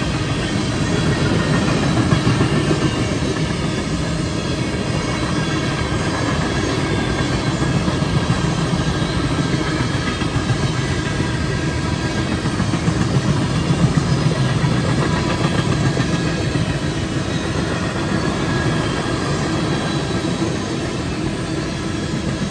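Empty freight cars of a train rolling past at speed: a steady rumble of steel wheels on rail that does not let up.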